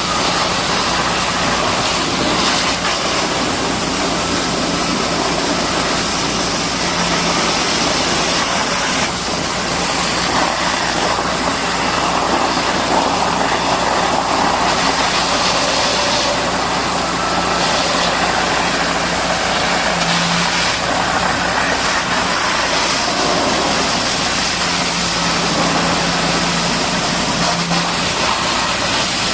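A machine engine runs steadily under an even, continuous hiss, with a faint low hum.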